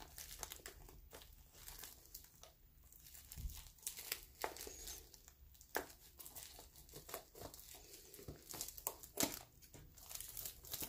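Faint crinkling and tearing of bubble wrap and packing tape as a heavily taped package is unwrapped, with scattered sharp clicks.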